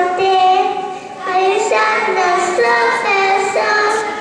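Children singing a song in long held notes that step from pitch to pitch, with a short break about a second in.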